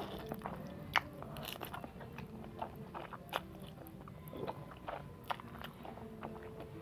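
Close-miked eating of spicy noodles: chewing and sharp mouth clicks, irregular throughout, with the loudest click about a second in.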